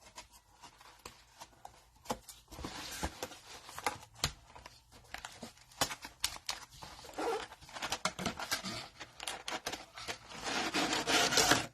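Plastic wrapping tearing and crinkling as a box of trading-card cello packs is opened and handled, with scattered small clicks and taps. There is a longer, louder stretch of rustling near the end.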